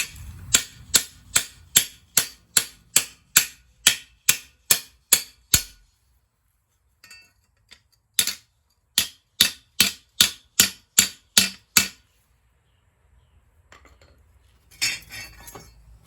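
Hammer blows on a steel lawnmower blade being modified, sharp metallic strikes at about two or three a second: a run of over a dozen, a pause of about two seconds, then about ten more.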